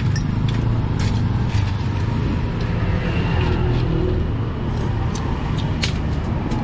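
Steady rumble of road traffic passing close by, with a few sharp clicks and taps scattered through it.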